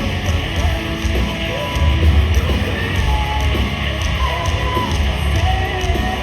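Live heavy rock band playing loudly: distorted electric guitars over bass and drums, with a bending lead melody on top.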